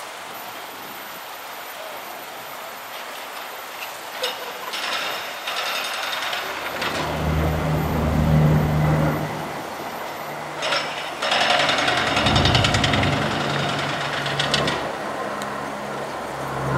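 Low, pulsing drone of a P-3C Orion's four turboprop engines and propellers as it passes overhead, growing louder about seven seconds in. Bursts of hiss come and go over it.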